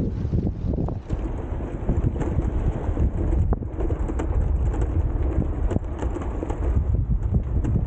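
Wind buffeting the microphone as an uneven low rumble, with scattered small clicks and knocks over it.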